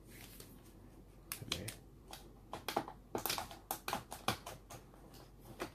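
Irregular run of light clicks and knocks, most of them between about one and four and a half seconds in, from handling an angle grinder fitted with a plastic belt sander head.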